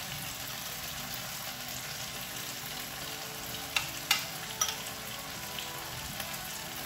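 Chicken curry paste frying in hot oil in a non-stick wok, a steady sizzle. About four seconds in come three sharp clinks of a spoon against the bowl.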